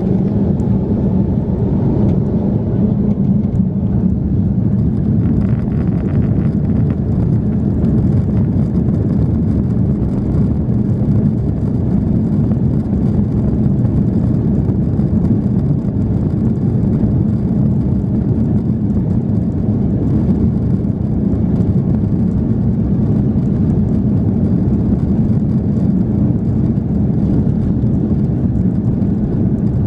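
Steady cabin rumble inside an Airbus A330-300 jetliner on the ground: engine and rolling noise heard through the fuselage, with no spool-up.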